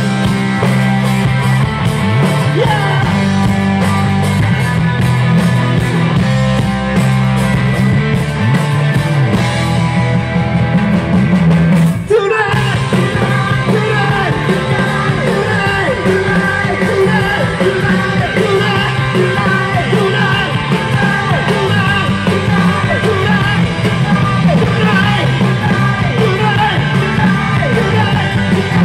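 Live rock band playing loud: electric guitars, bass guitar and a drum kit, with a male singer singing. The whole band stops for a moment about twelve seconds in, then comes straight back in.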